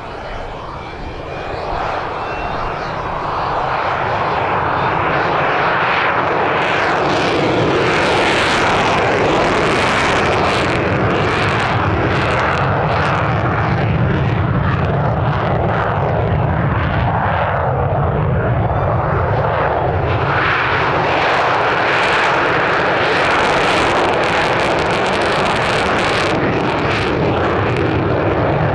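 A-4 Skyhawk jet aircraft with its engine running loud, building over the first few seconds, then holding steady with a ragged crackle.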